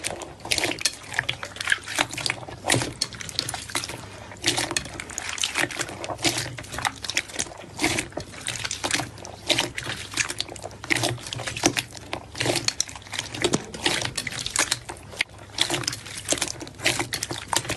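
Slime being squeezed and kneaded by hand: a continuous run of irregular wet clicks and pops.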